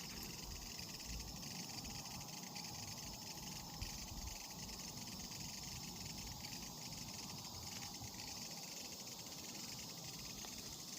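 Steady, continuous high-pitched trilling call of an unidentified calling creature taken for an insect, with a fast even pulse and no breaks.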